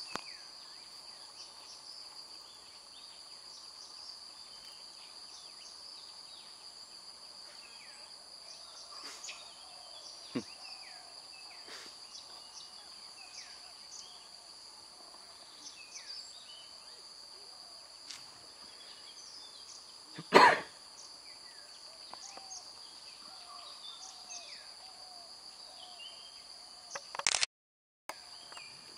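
Insects droning steadily in several even high tones, with many short chirping calls scattered through. About two-thirds of the way in comes one brief loud sound, and near the end a short loud burst, after which the sound cuts out for under a second.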